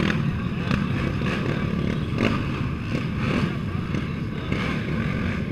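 Several racing ATV engines running together in a steady low drone, idling and blipping at the start line, with a few sharp ticks over it.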